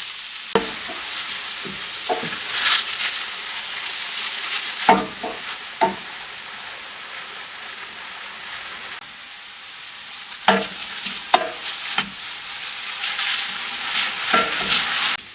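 Onions, scallions and mushrooms sizzling in olive oil in a frying pan. A utensil stirs them now and then, knocking and scraping against the pan several times.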